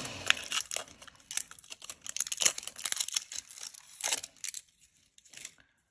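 Crinkling and tearing as a roll of masking tape is unwrapped and peeled: a run of quick crackles and rips that dies away about four and a half seconds in.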